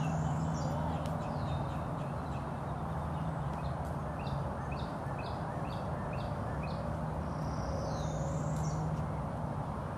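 Wild birds calling over a steady low hum: a rising whistle at the start and again near the end, with a run of short chirps in between.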